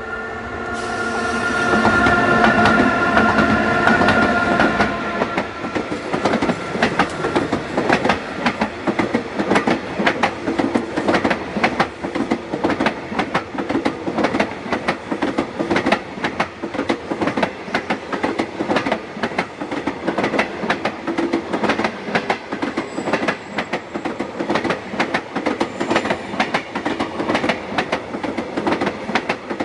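A long passenger train passing close at speed behind a Class 20E electric locomotive. There is a steady whine and the loudest noise in the first few seconds as the locomotive goes by, then a continuous rumble with the rhythmic clickety-clack of the coach wheels over rail joints.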